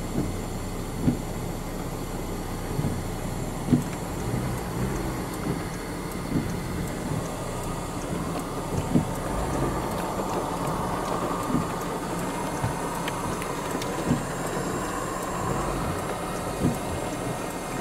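Wind buffeting the microphone: a steady rushing noise with irregular low thumps every second or two.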